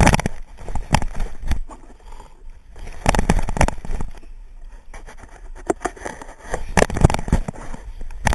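Staffordshire bull terrier mouthing and nosing at a GoPro camera: irregular knocks and scrapes of teeth and snout against the housing, in several short clusters with quieter gaps between.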